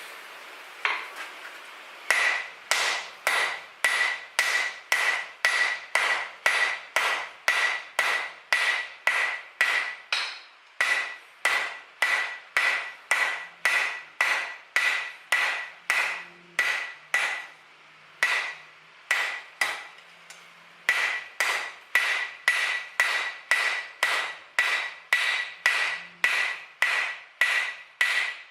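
Hand hammer striking hot 3/8-inch square steel bar on an anvil, drawing out the stem: steady blows at about two a second, each with a bright ring, broken by a few short pauses, about a third of the way in and again past halfway.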